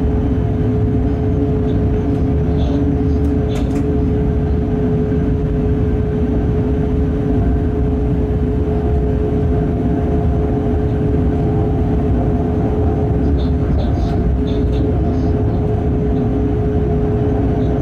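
Freight train in motion heard from the locomotive cab: a steady rumbling drone from the running gear and machinery, with one constant humming tone. A few faint ticks sound about three and a half seconds in and again about fourteen seconds in.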